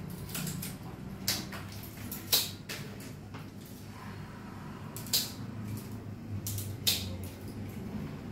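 A handful of sharp, separate clicks and knocks from objects being handled and set down, with the loudest about two and a half, five and seven seconds in, over a steady low hum.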